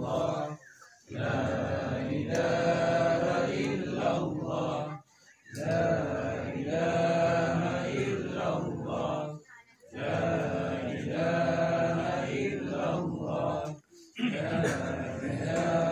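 Several men's voices chanting together in unison, in long drawn-out phrases broken by short pauses about every four seconds.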